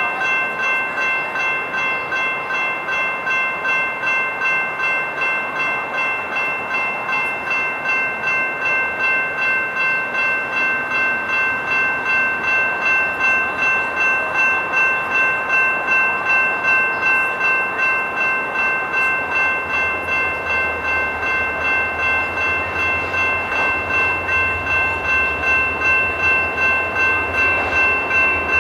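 General Signals Type 2 electronic crossing bell ringing steadily at about two strokes a second while the crossing is activated. A low rumble joins about two-thirds of the way through.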